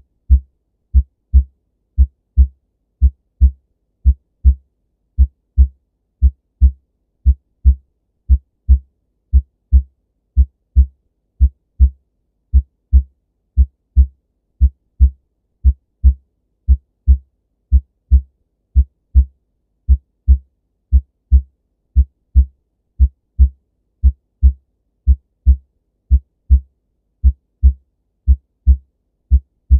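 Normal human heart sounds: a steady lub-dub rhythm of paired short, low thumps, the first and second heart sounds, with clear gaps between beats and no murmur.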